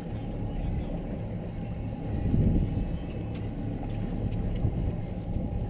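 Twin Suzuki outboard motors running at slow trolling speed, a steady low drone mixed with water wash, with a brief louder swell about two seconds in.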